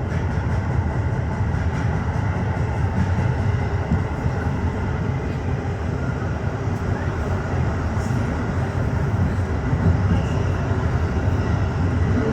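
Tokyo Metro 15000-series subway train running through a tunnel between stations, heard from inside the front car: a steady rumble of wheels on rail with a few faint clicks.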